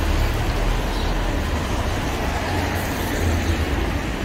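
Steady city street noise with a deep, fluctuating rumble underneath.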